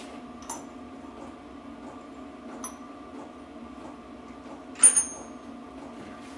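Metal tools clinking as they are handled: two light clinks, then a louder ringing double clink about five seconds in. A steady hum runs underneath.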